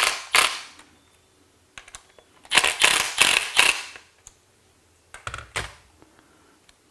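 A screw being driven into the accelerator pedal mount in groups of short, rapid, rasping strokes: a few strokes at the start, a run of about four strokes a few seconds in, then two more near the end.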